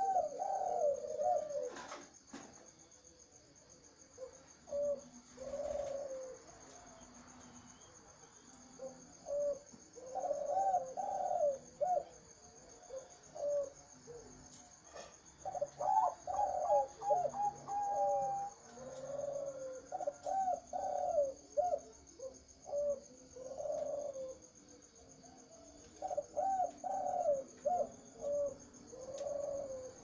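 Captive zebra doves (perkutut) cooing: repeated phrases of quick, bubbling rising-and-falling notes, with pauses of a few seconds between phrases. A faint steady high whine runs underneath, and there are two sharp clicks, about two seconds in and mid-way.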